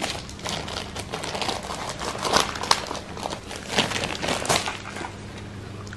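Thin plastic packaging wrap crinkling and rustling in irregular bursts as it is handled and pulled open by hand.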